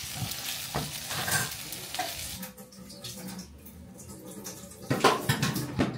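Spaghetti and tomato sauce sizzling in a frying pan while a utensil stirs and tosses it. The sizzle drops away about halfway through, and a few sharp clatters follow near the end.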